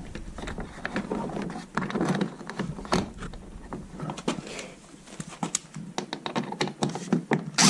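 Small screws and plastic body panels being handled by hand: scattered light clicks and taps with rustling.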